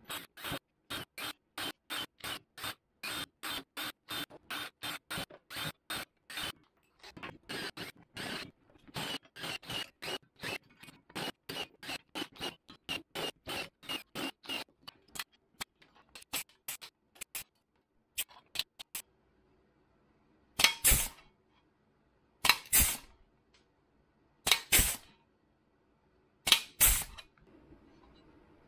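Cordless drill boring a row of spot-weld holes through a sheet-metal patch panel, in many short, quick bursts, about three a second, for most of the time. Near the end come four longer, louder bursts about two seconds apart.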